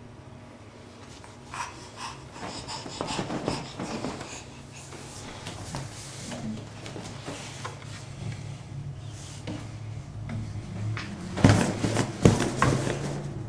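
A baby laughing, squealing and panting in bursts, with fleece blanket rustling. The loudest, breathiest bursts of laughter come near the end.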